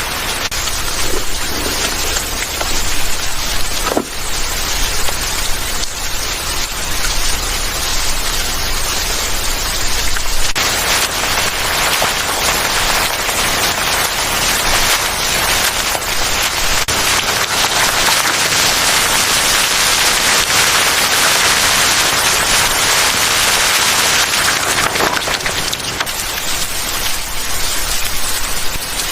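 Steady monsoon rain pouring down, growing heavier about ten seconds in and easing again near the end.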